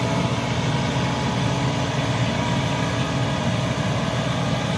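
Truck engine running steadily with an even low drone.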